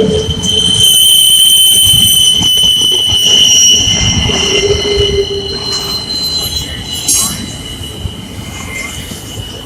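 A train passing close by, its wheels squealing on the rails in several steady high tones over a rumble, growing quieter over the last few seconds.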